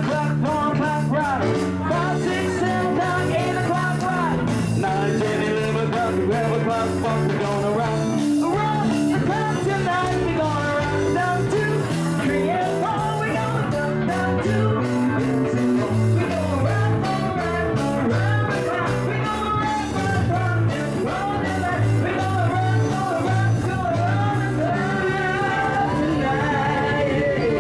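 Live band playing amplified dance music: a male singer on a microphone over electric guitar and bass guitar, with a steady beat.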